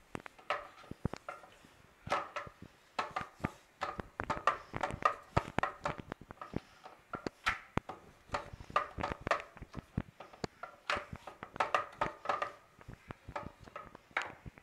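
Ghee crackling and spitting under a spinach flatbread frying on a tawa: irregular sharp pops that come in clusters.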